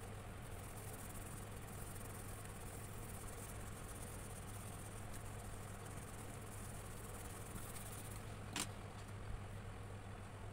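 Quiet room tone: a steady low hum and a high-pitched insect-like chirring that fades about eight seconds in, with one sharp click shortly after.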